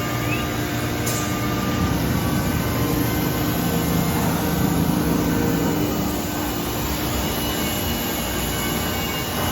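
A CNC router's machinery running steadily: a constant rushing noise with faint steady whines over it.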